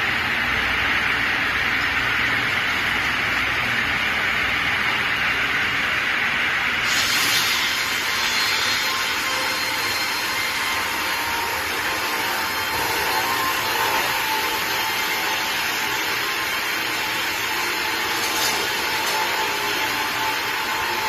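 Multi-blade rip saw running and sawing through logs, a steady loud machine noise; about seven seconds in a brighter hiss joins in and holds.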